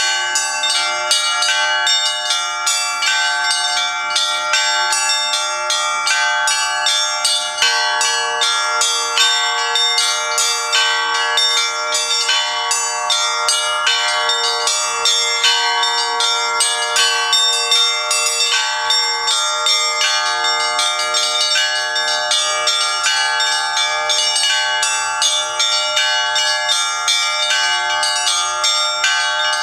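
A set of bells rung in a fast, continuous peal: many smaller bells strike several times a second over a dense wash of ringing tones. A deeper bell joins about eight seconds in and keeps sounding.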